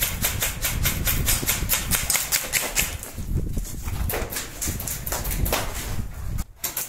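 Airsoft guns firing a rapid string of shots, about six or seven a second, then sparser single shots after about three seconds, over heavy rumble from the phone being carried and handled while moving.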